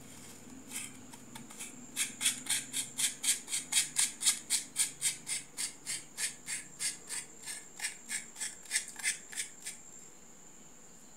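Metal mesh grille of a dynamic microphone being screwed back onto the handle by hand: a run of short raspy clicks from the threads, about four a second, starting about two seconds in and stopping near the end.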